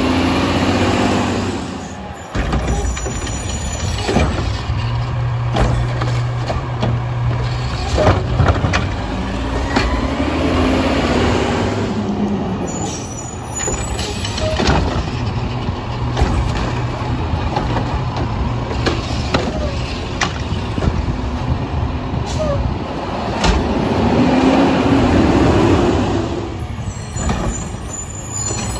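Diesel Autocar WXLL garbage truck with a McNeilus front-loader body and Curotto Can arm working its pickup. The engine runs and revs up three times, with several sharp clanks and air-brake hisses.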